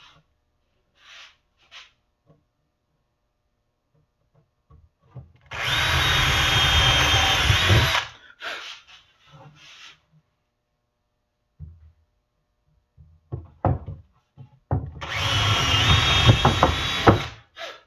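Cordless drill boring pilot holes into wood, two runs of about two and a half seconds each, with a steady motor whine. Small knocks from handling the boards in between.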